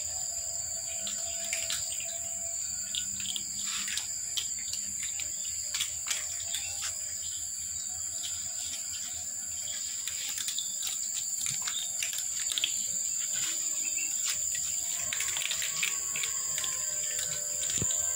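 Several cats crunching dry kibble: irregular crisp clicks, over a steady high-pitched whine.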